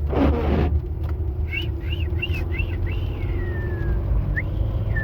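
A car driving on a wet road, heard from inside the cabin: a steady low rumble of road and engine noise, with a whoosh in the first second. A run of short high chirps comes about one and a half seconds in.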